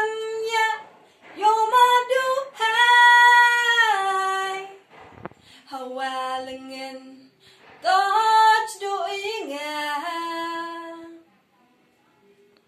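A woman singing solo with no accompaniment, holding long notes in phrases broken by short breaths. The voice stops a little over eleven seconds in.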